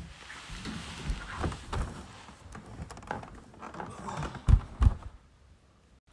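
Footsteps of someone in socks walking on a wooden floor, then two loud thumps a third of a second apart about four and a half seconds in.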